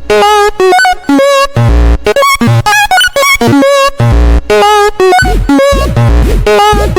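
Electronic dance music built from railroad crossing sounds: short, choppy pitched synth notes with frequent brief cut-outs over heavy bass hits.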